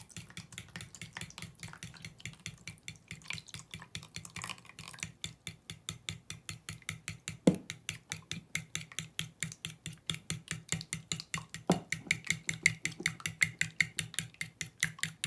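Spoon stirring a runny egg-and-milk custard mixture in a ceramic bowl: quick, rhythmic scraping and clinking against the bowl that grows louder in the second half, with two sharper knocks about seven and twelve seconds in.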